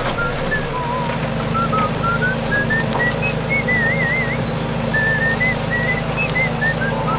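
A whistled tune of short notes stepping up and down, with a wavering trill about four seconds in, over a steady low engine drone.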